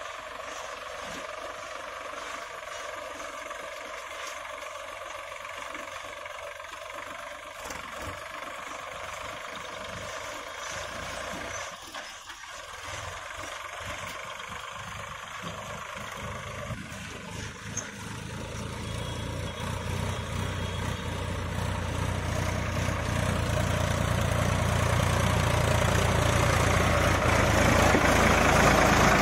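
Sonalika Tiger 50 DI 4WD tractor's diesel engine pulling a fully loaded trolley in second gear high at low throttle. Faint at first, it grows steadily louder and deeper over the second half as the tractor comes close.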